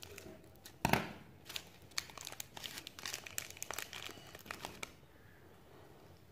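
Foil wrapper of a Popas chocolate candy egg crinkling and tearing as it is unwrapped by hand: a dense run of sharp crackles, loudest about a second in, that dies away near the end.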